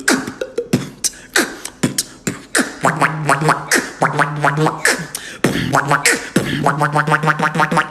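Human beatboxing: a fast run of mouth-made kick, snare and hi-hat clicks, joined about three seconds in by a buzzing hummed bass line held under the beat, with a quick rapid-fire run of pulses near the end.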